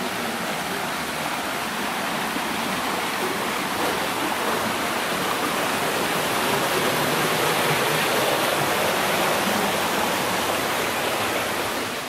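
Steady rush of a mountain stream tumbling over rocks and small cascades, swelling a little louder through the middle.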